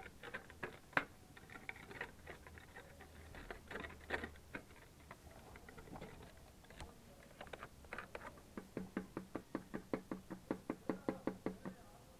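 Scattered clicks and knocks of a plastic-capped antifreeze bottle being unscrewed and handled. Then, from about eight and a half seconds in, a steady glugging at about seven pulses a second as the antifreeze is poured from the bottle into the car's coolant filler neck.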